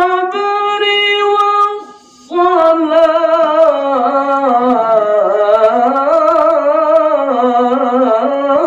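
A male qari's voice reciting the Qur'an in the melodic tilawah style into a handheld microphone: a high held note with a rising start, a short breath about two seconds in, then a long ornamented phrase whose pitch wavers up and down.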